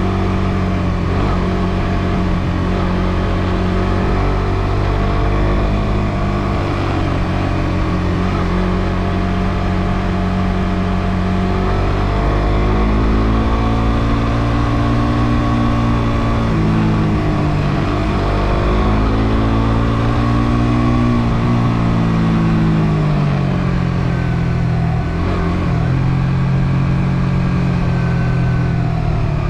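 Suzuki GSX-R150's single-cylinder engine running under way, its note steady at first, then rising and falling several times in the second half as the revs go up and down.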